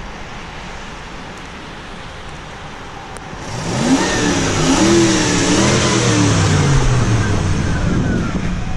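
Ford pickup truck's engine accelerating past at close range, its note rising and falling for about five seconds, over tyre hiss on a wet road. Before that, only a low steady background.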